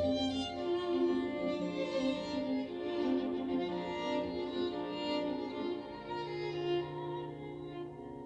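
Instrumental music on bowed strings, playing held, changing notes over a low sustained bass note.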